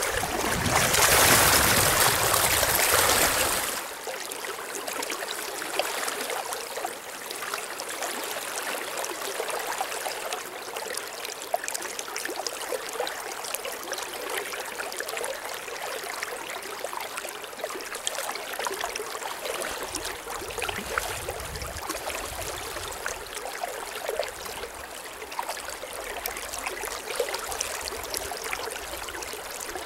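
River current running over a riffle: a steady, even rush of flowing water. A louder rush of noise covers the start and cuts off about four seconds in.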